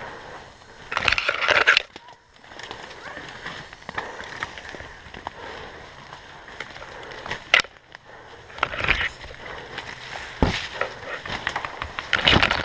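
Rustling and crunching of a player moving through woodland brush, in three noisy bursts, with a couple of short sharp cracks between them.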